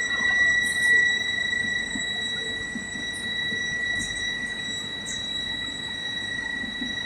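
CNC lathe running with a steady high-pitched whine and its overtones over a low rumble, with a few short faint crackles.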